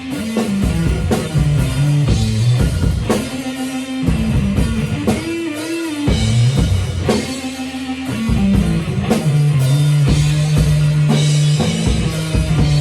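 Rock music instrumental: electric guitar with bass and a drum kit keeping a steady beat, no singing.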